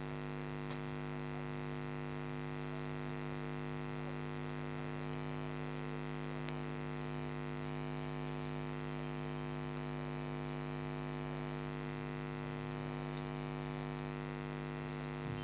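Steady electrical mains hum, a buzzy stack of tones that holds unchanged throughout, with nothing else heard.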